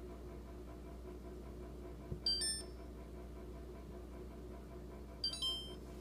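Two short electronic beep chimes from an LG LFX31925ST French-door refrigerator's control panel as its buttons are pressed, about two seconds in and again near the end, over the fridge's steady running hum.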